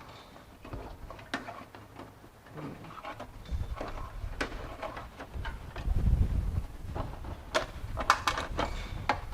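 Scattered clicks, rattles and knocks as the hood release cable is worked out of its plastic hold-down clips, with a low thump around six seconds in and a quick run of clicks near the end.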